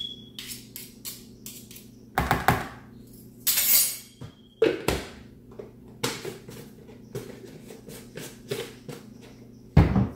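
Metal utensils clicking and scraping against each other and a mixing bowl as peanut butter is scraped off a spoon with a knife, with a few louder knocks and clatters and the loudest thump just before the end.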